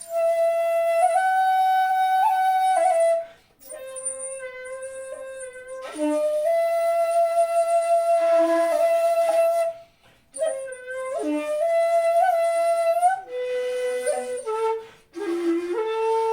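Jinashi shakuhachi, 2.0 shaku long and pitched in C, playing slow phrases of long held notes that step between pitches. The phrases break off briefly three times, about three and a half, ten and fifteen seconds in.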